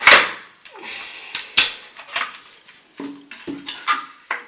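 Clicks and knocks of a new Evolution R185CCSX circular saw being handled and adjusted: hard plastic and metal parts knocking and levers clicking, a loud knock at the start and about six sharper clicks after it.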